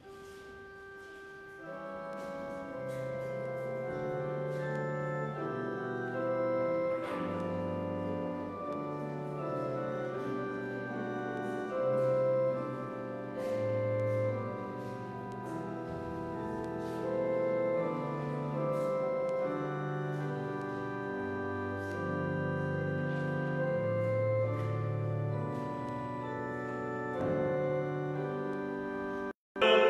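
Church organ playing slow, sustained chords over a moving bass line, quiet at first and fuller about two seconds in. The sound drops out for an instant near the end.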